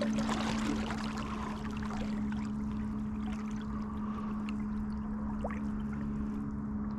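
Newport NK 180 Pro electric kayak motor running with a steady hum while water rushes and splashes against the moving kayak; the splashing eases after about two seconds.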